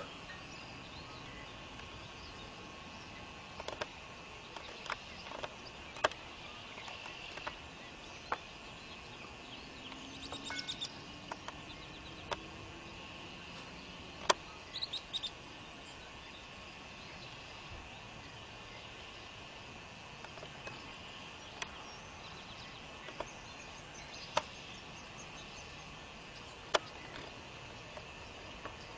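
Open-field ambience: a steady high chirring of insects, with a few short bird chirps and a dozen or so sharp clicks scattered through it.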